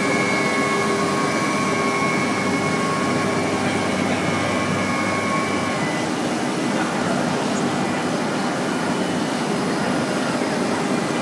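CNC router spindle running with a steady high whine, which stops about six seconds in, over continuous machinery noise.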